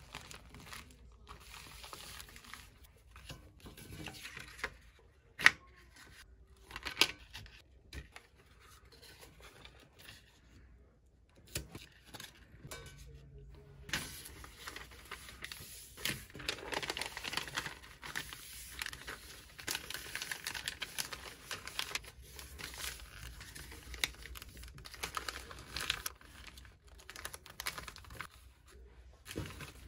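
Paper and a bubble mailer being handled, folded and wrapped by hand: rustling and crinkling, sparser in the first half with two sharp taps about five and seven seconds in, then denser and steadier from about halfway.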